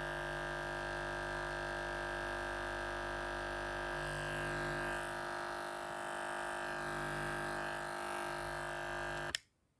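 Electric shaver running steadily with a buzzing hum, then switched off near the end with a click, the sound stopping abruptly.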